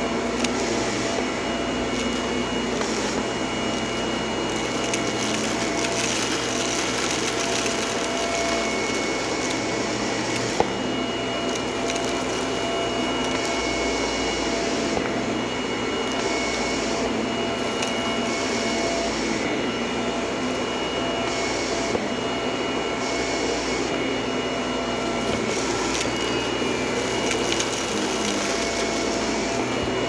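Shark upright vacuum cleaner running steadily while pushed over carpet, a constant rushing hum with a steady whine in it. A few sharp ticks are scattered through it.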